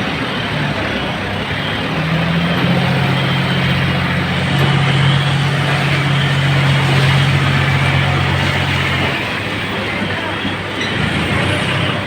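John Deere tractor's diesel engine running under a constant mechanical rumble. Its note steps up to a higher, steady pitch about two seconds in and drops back a little after nine seconds.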